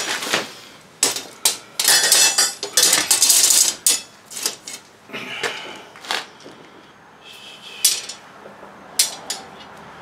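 Clattering and clinking of a trash bag holder being handled and fitted back together after it came apart: a busy run of knocks and rattles in the first few seconds, then a few separate sharp clicks.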